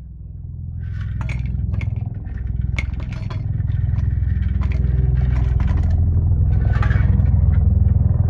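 Low rumbling that grows louder over the first few seconds, with scraping and clattering on top.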